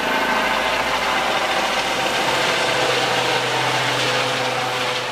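Emergency medical helicopter departing low overhead: a steady turbine whine and rotor noise that swells in the first second and eases off slightly near the end.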